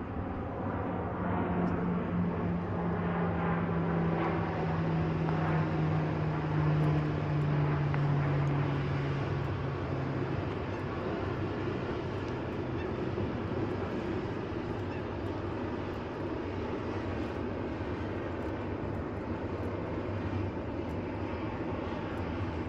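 A distant engine drone, slowly falling in pitch, that fades out about ten seconds in, over steady outdoor background noise.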